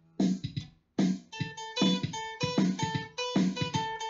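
Guitar playing an instrumental passage of single picked notes. It breaks off briefly a little under a second in, then resumes with a steady run of plucked notes.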